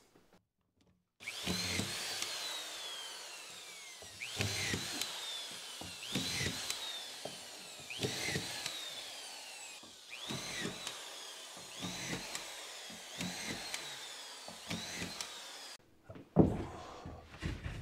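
Collated auto-feed drywall screw gun driving screws into drywall, about eight in a row: each time the motor whine rises, the screw goes in with a short rattle, and the whine falls away as it winds down. A thump near the end.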